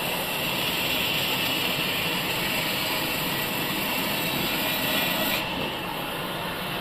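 Sawmill saw running steadily, a continuous mechanical noise; its higher, hissing part drops away about five seconds in, leaving the lower running noise.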